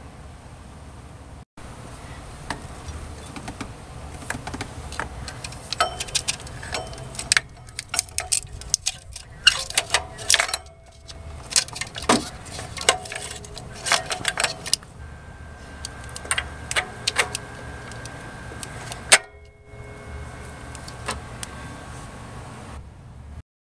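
Metal clinking and scraping as a new aluminium water pump is handled and set into place on a Toyota 5S-FE engine block. Many sharp clicks and clinks, a few ringing briefly, over a steady low rumble.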